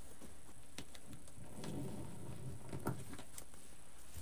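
Faint rustling and crinkling of wired ribbon and deco mesh being handled and tucked into pipe-cleaner ties, with a few light clicks, a little louder around the middle.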